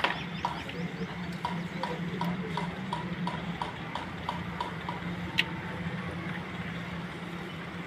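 Evenly spaced clicking, about three clicks a second for some four seconds, from a hand tool working at the Suzuki Cultus's starter motor, then one sharp knock about five seconds in. A steady low hum runs underneath.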